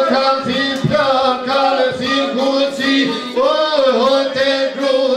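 Albanian folk song: a man singing over a held drone note, with a steady beat of about two strokes a second.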